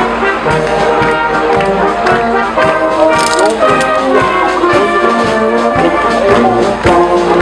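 Brass band playing a march-like tune, trumpets and horns carrying the melody over a steady beat.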